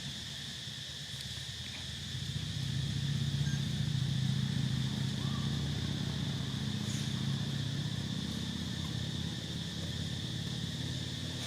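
Outdoor ambience: a steady high-pitched insect drone over a low engine-like hum that grows louder about two seconds in.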